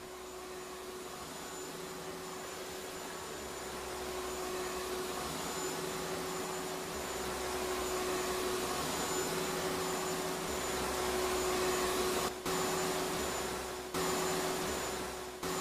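Vacuum cleaner running, a steady whine over a rush of air, growing louder over the first several seconds and briefly cut twice near the end.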